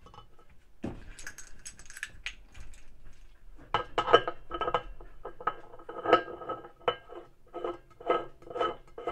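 Metal clinking and scraping at the washing machine's drive hub as a nut and washer are threaded onto the shaft by hand. From about four seconds in it settles into regular metallic clinks, about two a second.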